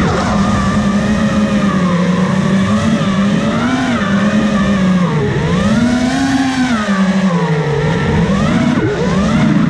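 FPV quadcopter's electric motors and propellers buzzing loudly, the pitch swinging up and down as the throttle changes, with a deep dip about five seconds in.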